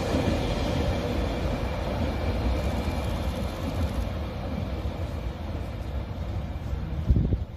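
Wheels of a train of new Abukuma Express AB900 series railcars, hauled as a delivery, rolling on the rails and fading steadily as the train moves away. A short louder thump comes near the end, then the sound cuts off.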